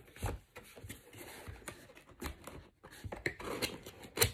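Rustling and light clicks of packaging and box being handled, with a sharper click just before the end.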